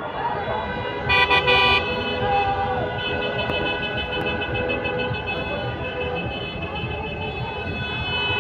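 Many car horns honking in a celebration motorcade: a loud blast of several horns together about a second in, then horns held and sounded over one another, over steady street noise.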